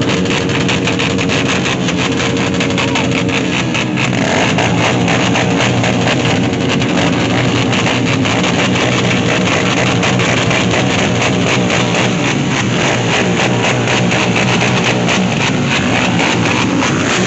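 Loud rock music with electric guitar, steady throughout, with a change in the music about four seconds in.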